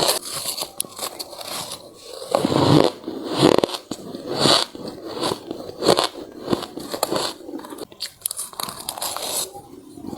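A person biting and chewing hard freezer ice close to the microphone: repeated loud crunches, with crackling and squeaking between bites.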